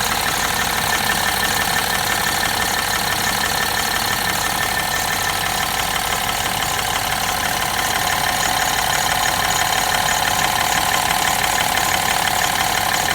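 BMW F30's N13 1.6-litre turbocharged four-cylinder engine idling warm, with a shuffling, scraping noise like rubber rubbing against something. The owner finds the noise only on the warmed-up engine, and it stays with the accessory drive belt removed, so it is not from the belt.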